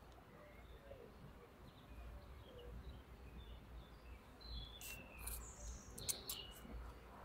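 Faint birdsong of short, high chirps, with a few sharp clicks near the end.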